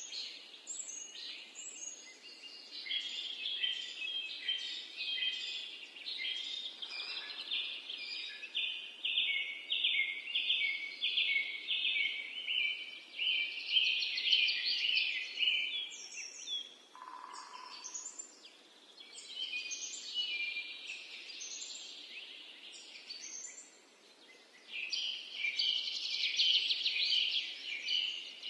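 Birds singing, a dense chorus of quick, repeated high chirps and trills. It eases off briefly twice and picks up again near the end.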